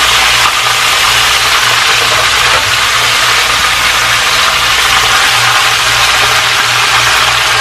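Whole fish deep-frying in hot oil in a frying pan: a loud, steady sizzle, with a low hum underneath.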